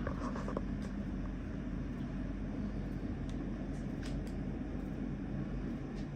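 Steady low hum, with a few faint light clicks about half a second in and again around four seconds in.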